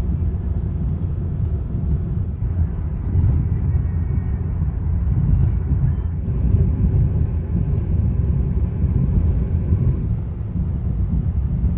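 A car driving at steady road speed: an even low rumble of engine and tyres on the highway.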